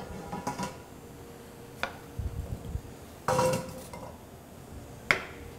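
Stainless steel mixing bowl knocking and clinking against the cutting board and a handheld apple slicer-corer as an apple is pressed down through the slicer's blades: a few separate knocks, the loudest about three seconds in with a short metallic ring, and a sharp click near the end.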